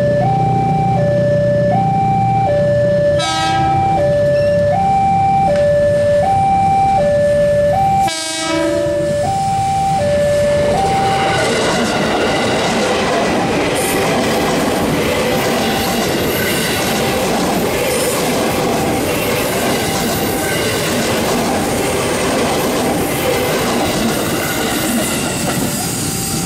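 Railway level-crossing alarm sounding its two-tone ding-dong, alternating about once a second, with two short train horn toots about 3 and 8 seconds in. From about 11 seconds a KRL JR 205 electric commuter train passes close by with loud wheel and rail noise, the crossing alarm still going under it.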